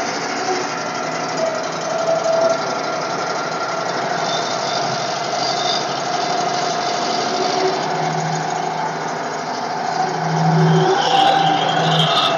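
Portable band sawmill's engine running steadily, with a steady whine over it. About eight seconds in a lower hum joins, and near the end the sound grows a little louder.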